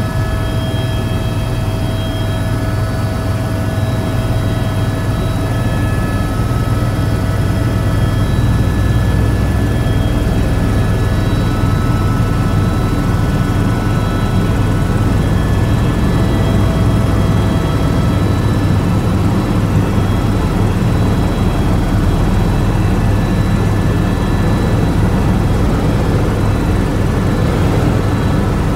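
Tour helicopter in flight, heard from inside the cabin: a loud, steady drone of rotor and engine, with faint whining tones above it.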